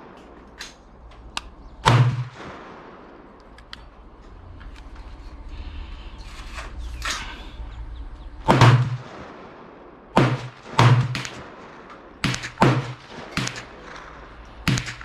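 Pistol gunshots at a shooting range: a single shot about two seconds in, another past the middle, then a quicker uneven string of about six shots over the last five seconds.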